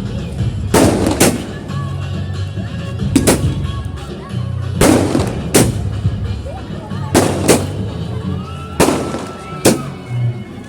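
Firecrackers going off, about ten sharp bangs that mostly come in pairs roughly every two seconds, over music with a steady low bass.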